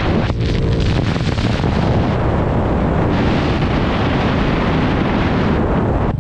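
Heavy wind buffeting on a helmet-mounted camera microphone at speed, loud enough to drown most of the engine. Beneath it, the 50cc GY6 scooter's single-cylinder four-stroke runs hard at full throttle on a top-speed run. The engine's steady drone is clearest only in the first moment.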